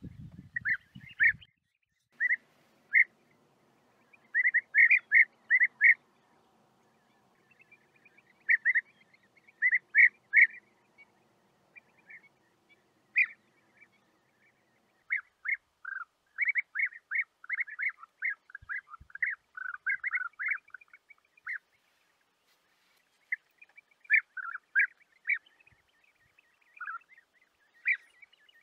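European bee-eater calls: short, rolling notes near 2 kHz, given singly and in quick runs of two to five with pauses between, coming thicker in the second half.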